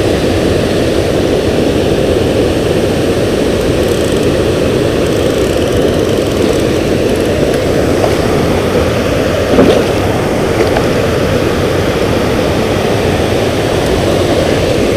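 Steady rushing of water pouring over a dam spillway, with a short splash about nine and a half seconds in as a northern pike is grabbed from the water by hand.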